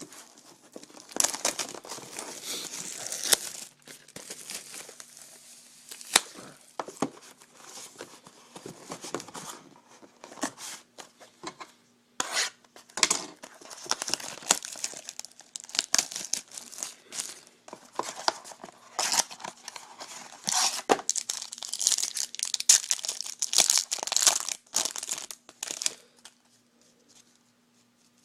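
Wrapping on a trading-card box and packs being torn open and crinkled: irregular rips and rustles with sharp clicks of cardboard handling, dying down near the end.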